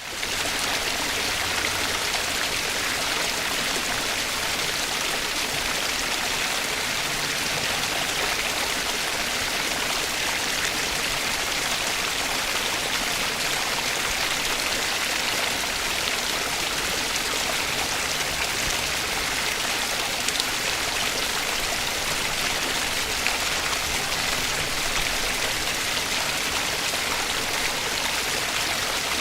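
A stream running steadily over rocks, an even rushing of flowing water with fine bubbling.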